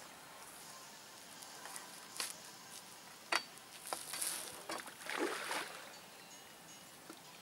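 Faint clicks and knocks, then a brief splash of water about four to five seconds in, as a hooked carp is played in to the bank.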